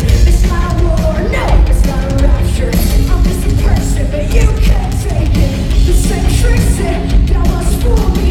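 Live rock band playing loud in an arena: distorted guitars, bass and drums under a wavering sung melody.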